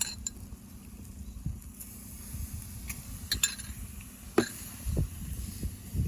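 A few light metal clinks of cooking utensils against the grill of a fire-pit stand over a faint steady hiss, with a low rumbling starting near the end.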